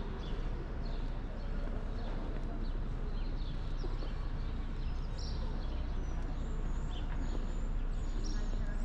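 Small birds chirping in short, high calls, scattered throughout, over a steady low rumble of outdoor ambience.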